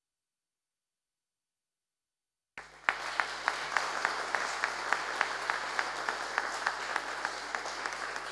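Silence, then applause begins abruptly about two and a half seconds in: many people clapping, with one close pair of hands standing out in an even rhythm of about four claps a second.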